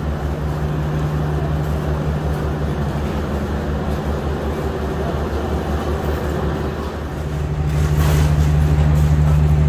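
D19E diesel-electric locomotive idling, a steady low engine drone that gets louder about eight seconds in.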